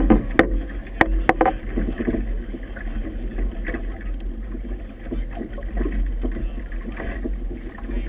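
Wind buffeting the microphone with a steady low rumble over the wash and slap of choppy water against a small boat, with a few sharp knocks in the first second and a half.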